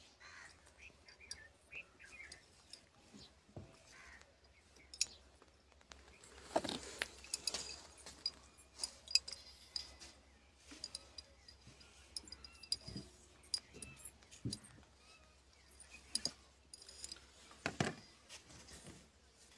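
A thin iron rod working inside a glass bottle: faint, irregular clicks and clinks of metal and small parts against the glass, with a few louder taps now and then.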